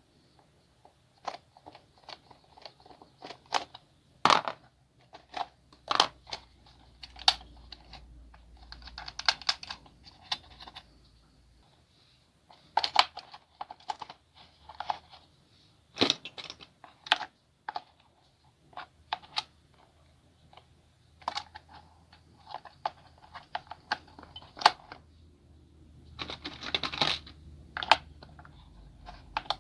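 Hands handling plastic toy parts and packaging: irregular sharp clicks and taps, with short crinkling rustles about nine seconds in and again near the end.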